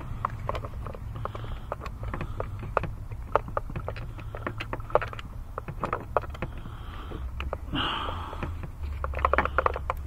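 Irregular metal clicks and clinks of a spark-plug socket and extension being handled and fitted around the engine, with a quicker run of clicks near the end. A steady low hum runs underneath.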